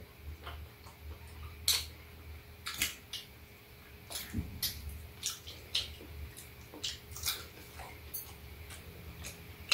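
Eating sounds at a meal: chewing and wet mouth smacks of people eating yangjangpi, with short, irregular clicks from chopsticks and a metal spoon.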